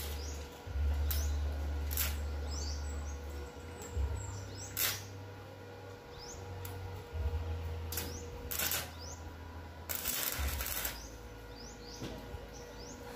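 Short bursts of stick-welding arc crackle, the longest about ten seconds in, as a tek screw is tack-welded to a hard steel C-purlin that the screw could not drill into. Birds chirp throughout, and a low hum comes and goes.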